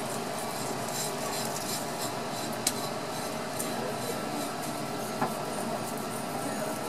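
Knife blade scraping along the skin of a whole fish on a plastic cutting board, in a run of short rasping strokes, with two sharp clicks about three and five seconds in.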